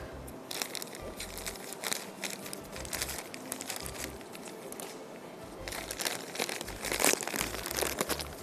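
Plastic wrapper of a frozen seekh kebab packet crinkling as it is handled and cut open with scissors, in irregular crackles, loudest about seven seconds in.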